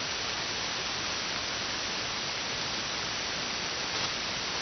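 Steady hiss of 160-meter band noise from a ham radio receiver between transmissions, cut off at about 6 kHz by the wide receive filter.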